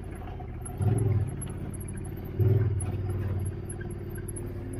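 Off-road vehicle engine running steadily while being ridden, with two brief louder surges: one about a second in, and a longer one about halfway through.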